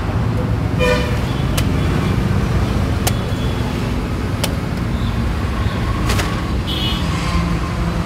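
Steady rumble of road traffic, with four sharp knocks a second or two apart from a machete chopping into the husk of a tender coconut.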